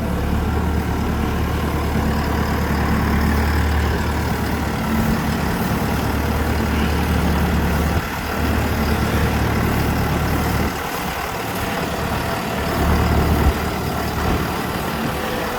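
Skid steer engine running steadily, its low hum dipping briefly about eight seconds in and again for a second or two a little later.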